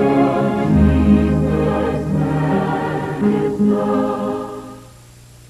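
Gospel choir music with sustained chords, fading out near the end and leaving a faint low hum.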